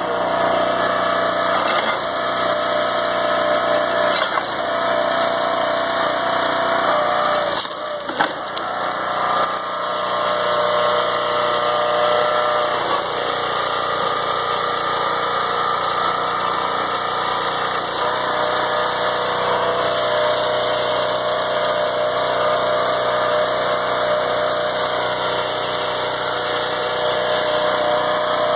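Engine and hydraulics of a log splitter running steadily while it splits oak rounds on a four-way wedge. The engine's tone dips and shifts briefly about eight seconds in.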